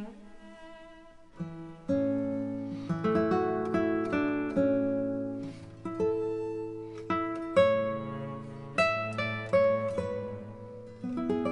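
Background music: an acoustic guitar picking notes and chords, each note struck sharply and ringing out, starting in about one and a half seconds in.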